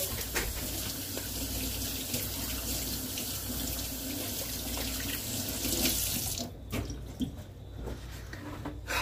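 Water running from a kitchen faucet into a stainless steel sink as hands are washed under it, shut off about six and a half seconds in. A few small knocks follow, one sharper near the end.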